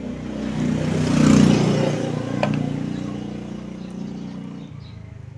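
A motor vehicle driving past, its engine note swelling about a second in and fading away over the following seconds. A single sharp click about halfway through.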